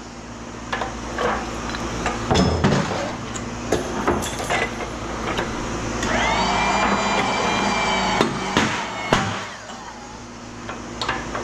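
Metal knocks and clanks as small scrap transformers are broken apart, repeated and irregular, over a steady machine hum. A high whine comes in about six seconds in and stops about two seconds later.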